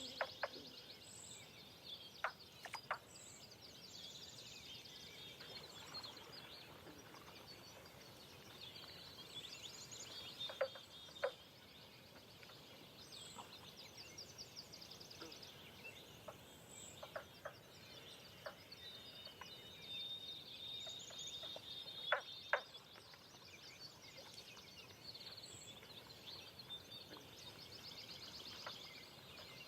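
Dawn chorus of several birds chirping and trilling, layered and continuous, with a few sharp clicks, some in quick pairs, standing out as the loudest moments.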